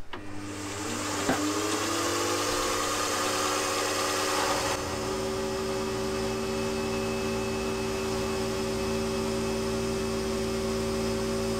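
Milling machine spindle spinning up with a rising whine over the first second, then running steadily while an end mill shaves the edge of an aluminium plate. The tone pattern shifts about five seconds in.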